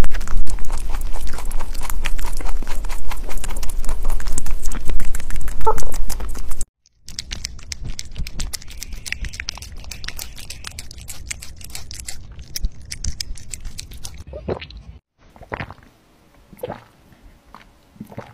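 Rabbits chewing in close-up. Rapid, loud crunching of small green fruits comes first; after a cut about seven seconds in, the crunching of a piece of fruit is quieter and steady. Near the end a rabbit drinks from a water bottle's metal spout, with only a few faint clicks.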